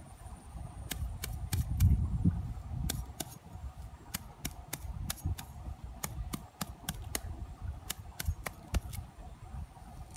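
Grass stems being cut and pulled by hand, giving irregular sharp snips and snaps, about twenty over the stretch, over low rumbling handling noise.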